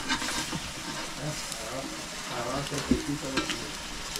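Food frying over hot coals: a steady sizzling hiss broken by scattered sharp crackles.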